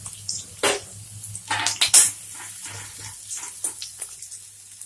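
Sliced onions sizzling in hot oil in an aluminium kadhai, with a run of scrapes and knocks of a slotted metal spoon against the pan as they are stirred. The loudest clatter comes about two seconds in.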